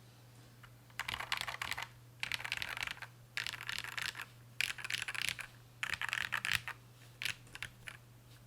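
Typing on a custom KBD8X MKII keyboard: lubed and filmed Gateron Ink Black V2 linear switches in a full brass plate with PBT keycaps. Five quick bursts of rapid keystrokes with short pauses between, then a few single keystrokes near the end.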